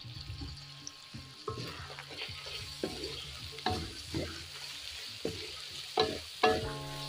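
A wooden spatula stirring and scraping ground pork with diced carrots, potato and bell pepper in a metal wok as the food sizzles. Irregular scraping strokes, the two loudest near the end.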